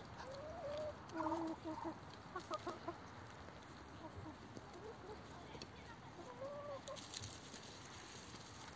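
Hens clucking: several short calls scattered through, with a few sharp clicks near the end.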